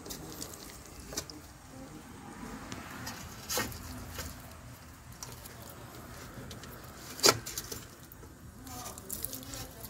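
Hands setting a marinated whole chicken onto a perforated aluminium steamer tray: soft handling and rustling noises with a few knocks against the metal. One sharp knock comes about three and a half seconds in, and the loudest about seven seconds in.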